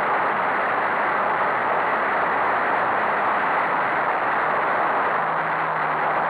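Folkrace car at racing speed on a gravel track, heard from a camera mounted on the car: a steady, loud rush of wind, tyre and gravel noise with the engine underneath. A steady low engine note comes through about five seconds in.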